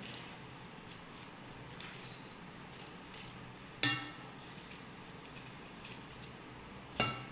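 Kitchen knife scraping and picking dry skin off a red onion, with faint scattered clicks and crackles. Twice, about four seconds in and near the end, a sharp clink of metal kitchenware rings briefly.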